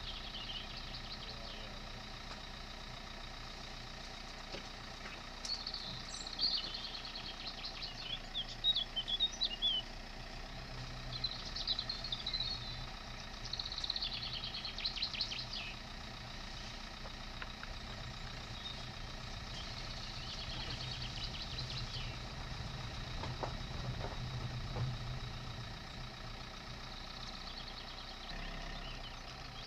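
Dacia Duster's 1.5 dCi diesel engine running steadily at low speed along a rough track. Birds sing in quick high chirps and trills from about five seconds in to about sixteen seconds.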